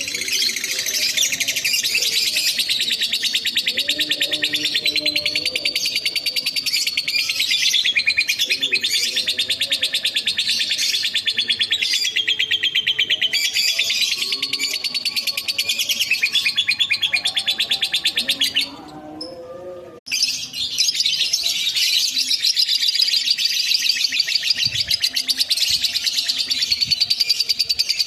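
Lovebird singing its long 'ngekek' song: a fast, unbroken chatter of rapid high notes. It stops briefly about two-thirds of the way through, then starts again and carries on.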